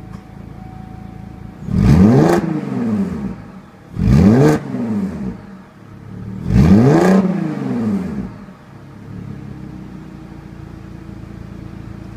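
A 2010 Cadillac CTS's 3.6-litre V6 through a Corsa Sport axle-back exhaust with CTS-V mufflers, idling and then revved three times, about 4000 rpm, each rev rising and falling quickly back to idle. The third rev is held a little longer before the engine settles into a steady idle.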